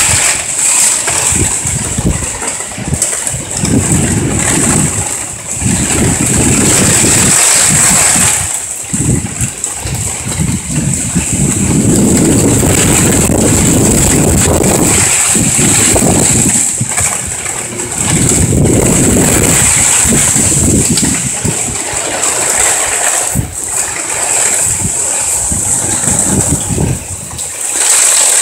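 Thunderstorm wind buffeting the microphone in irregular gusting swells, each lasting a second or a few seconds, over a steady high hiss.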